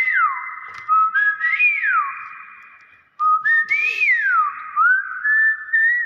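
Common hill myna whistling a repeated phrase of short notes stepping up in pitch, each time ending in a long note that slides down.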